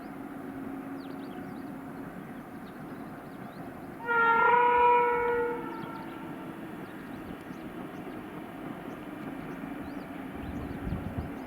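WAP7 electric locomotive's horn sounding one blast of nearly two seconds, about four seconds in, over a steady low hum.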